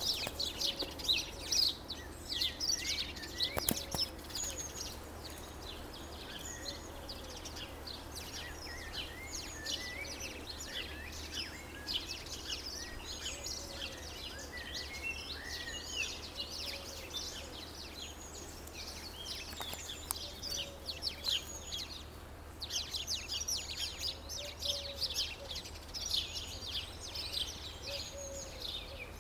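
Songbirds singing and chirping together, a dense chorus of many short high notes that keeps going throughout.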